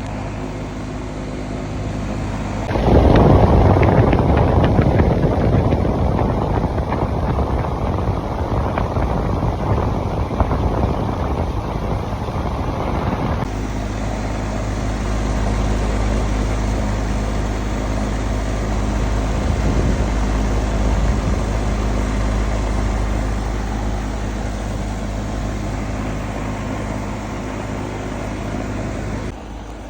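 Outdoor air-conditioning condenser unit running after a blown run capacitor was replaced: a steady mains hum from the compressor with the rush of the condenser fan. For about ten seconds, starting about three seconds in, a louder rushing noise sits over the hum.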